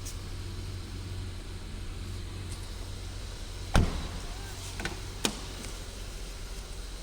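Holden Commodore 3.8-litre V6 engine running at a steady idle, with a sharp knock a little under four seconds in and two lighter clicks about a second later.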